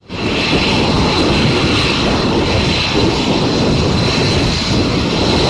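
F-22 Raptor fighter jets' turbofan engines running steadily on the ground, a loud rushing roar with a steady high turbine whine, fading in at the very start.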